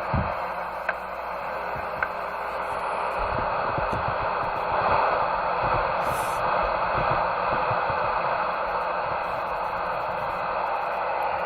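CB radio receiver hissing with steady static, with no voice on the channel.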